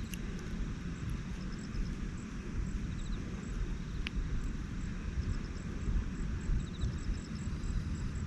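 Outdoor ambience: a steady low rumble with faint, regularly repeating high-pitched insect chirps, and a single sharp tick about halfway through.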